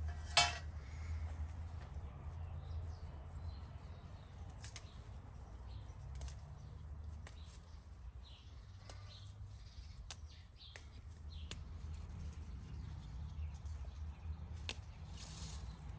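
Herb stems snapping and leaves rustling as they are picked by hand: scattered small sharp snaps over a steady low rumble, with a brief louder noise about half a second in.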